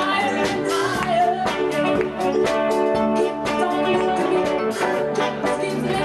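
Live band playing: a singer's voice over guitar and a drum kit keeping a steady beat.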